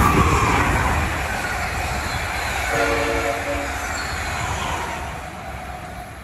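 An Amtrak Acela high-speed trainset passes at speed and runs away into the distance, a loud rush of wheels on rail that fades steadily. About three seconds in, a train horn sounds for about a second.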